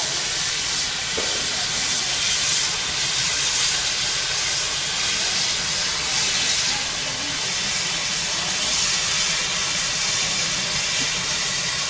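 Steam locomotive standing at the platform, hissing steam steadily.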